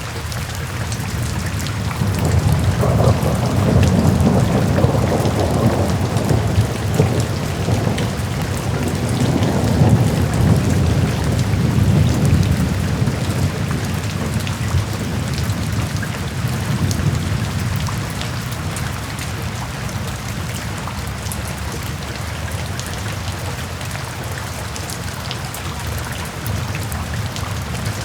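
Steady rain hissing and pattering, with a long low roll of thunder that swells about two seconds in and dies away around the middle.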